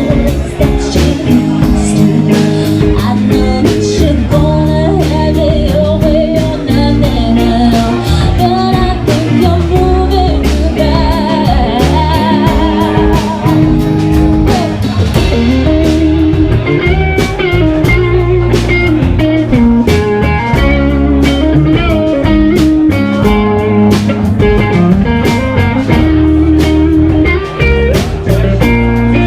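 Music: a guitar-led song with bass and a steady drum beat.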